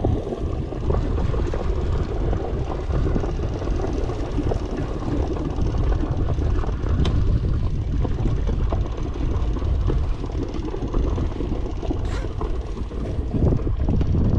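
Wind buffeting the action camera's microphone: a loud, uneven low rumble that swells and dips in gusts.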